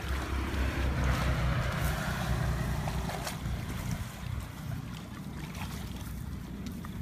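Water splashing and rushing, strongest in the first few seconds and then easing, over a steady low rumble of wind buffeting the microphone, with a few faint clicks.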